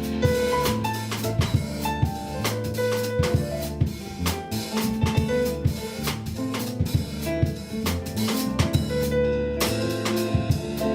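Band music: a drum kit playing a steady beat with kick and snare, under a bass guitar line and held melody notes.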